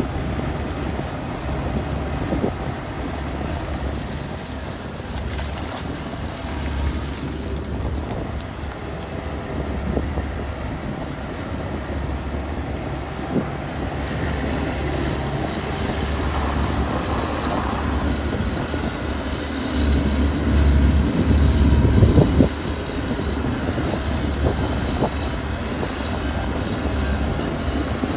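Heking amphibious excavator's diesel engine running steadily while it digs and moves in mud, with a few knocks from the arm and tracks. It grows louder for a couple of seconds about twenty seconds in, ending in a sharp knock.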